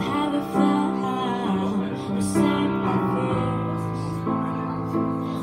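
A woman singing live into a microphone, accompanied by sustained chords on a Korg Kronos keyboard.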